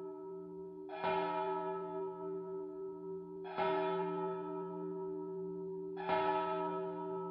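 Church bell, rendered by a wave-based acoustic simulation, struck three times about two and a half seconds apart, each strike ringing on under the next. Each strike has the characteristic double ring caused by reflections.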